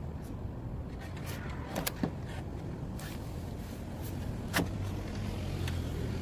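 A low, steady vehicle engine rumble that grows a little louder past the middle, with a few short clicks.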